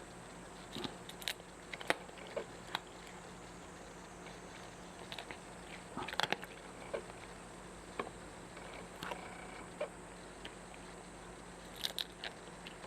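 A cat chewing, with irregular crunching bites that come in small clusters and pauses between them.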